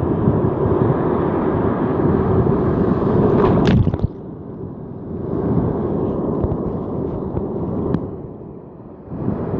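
Ocean surf and whitewater washing and sloshing close around the microphone, with a sharp splash about three and a half seconds in. The sound goes muffled and quieter twice, just after the splash and again near the end.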